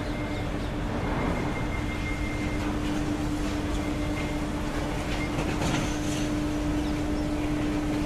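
Rotary wagon tippler turning a railway coal wagon over to dump its coal: a steady drive hum over continuous rumbling, with short rattles about a second in and around six seconds in as the coal slides out.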